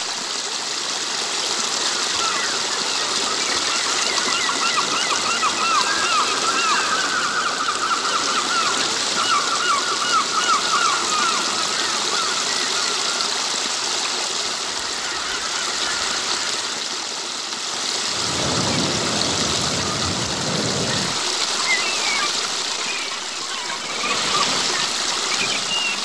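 Water trickling and splashing steadily over a small cascade of rounded stones into a pool. A small bird sings rapid, repeated trilled chirps through roughly the first half, with a few scattered chirps near the end.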